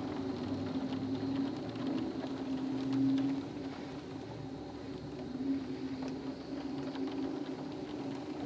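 Wind and heavy rain of a thunderstorm heard from indoors through a window: a steady low drone that swells about three seconds in and again a little later, with faint ticks of drops. No thunder.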